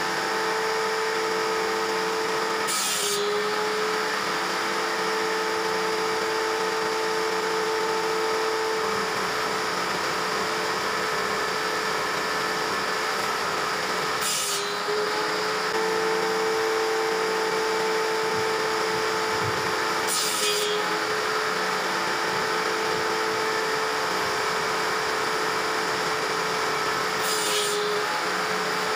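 Table saw running steadily with a constant motor hum while ripping wooden strips. Four times the blade bites hard into the wood with a short, harsh burst, and the motor's pitch dips briefly under the load.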